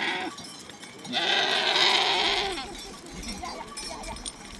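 Sheep bleating: a short bleat at the start, then one long, loud bleat held about a second and a half, followed by fainter bleats from the flock.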